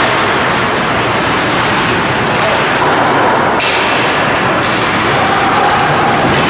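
Steady, loud ice-rink noise during a hockey game, with two sharp cracks of play about a second apart near the middle.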